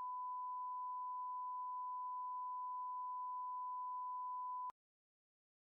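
A steady, mid-pitched pure electronic tone, one unchanging beep held for nearly five seconds that cuts off suddenly.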